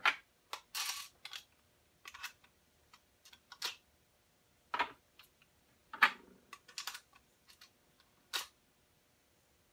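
Lee Auto-Prime hand priming tool clicking as it seats large rifle primers in .308 Winchester brass cases, mixed with the brass cases clinking as they are handled and set into a plastic loading block. Short, irregular clicks and clinks, roughly one every second or so, some sharper and louder than others.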